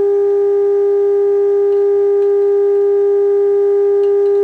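Steady, loud, slightly buzzy test tone from the Zenith AA5 radio's speaker: the signal generator's audio-modulated 455 kc signal coming through the IF stages during alignment, here peaked at strong output. It holds unchanged in pitch and level.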